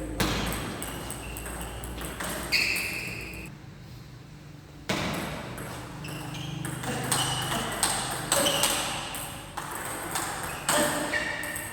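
Repeated short high-pitched squeaks and sharp hits, typical of shoe soles and strikes during play on an indoor court.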